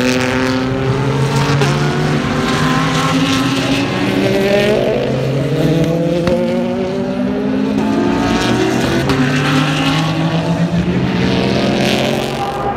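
Several IMSA sports racing cars passing at speed, their engines accelerating. The engine notes overlap, each climbing in pitch and dropping back at gear changes.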